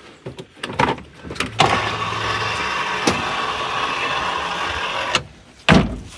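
A steady mechanical whir from the pickup truck, lasting about three and a half seconds and stopping suddenly. It is followed by one loud, heavy thump near the end.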